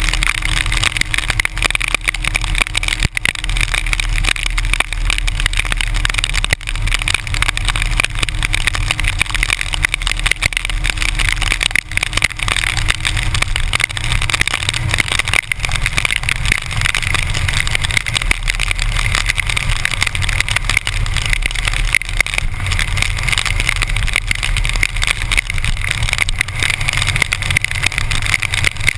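Harley-Davidson motorcycle's V-twin engine running steadily at highway cruising speed, its low rumble mixed with constant wind and rain noise.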